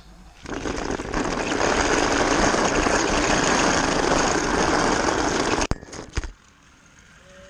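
Battery-powered Magic Tracks toy car's small electric motor and plastic wheels running on the plastic track, loud and close. It starts about half a second in, runs steadily for about five seconds, then cuts off suddenly, followed by a few quick knocks.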